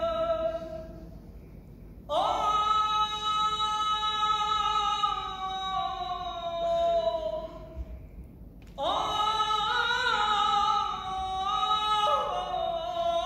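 A woman singing long, drawn-out notes in two phrases, each opening with an upward swoop and then held, sliding slowly down.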